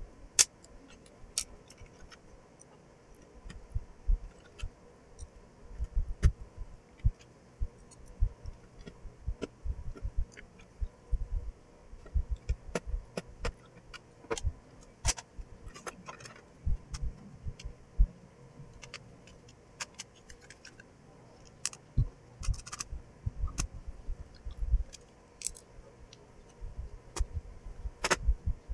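Small screws being handled and driven with a screwdriver into a landline phone's plastic housing: irregular small clicks, metallic rattles and low knocks, with a sharper click near the end. Each screw is first turned backwards until it clicks, the sign that it has dropped level into its thread in the plastic.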